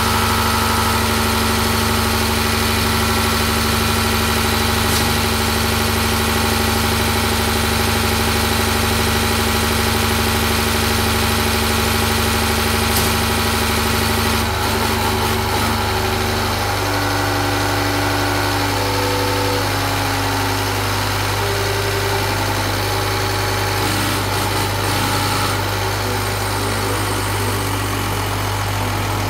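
Diesel injection pump test bench running steadily, driving a Bosch injection pump that sprays test oil into the graduated measuring glasses while the pump's delivery is being set. Its steady tone shifts about 15 seconds in and again a couple of seconds later.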